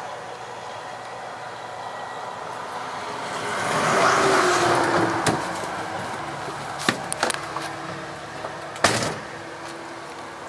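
A vehicle passing by, swelling to its loudest about four seconds in and then fading, followed by a few sharp knocks, the loudest near nine seconds in.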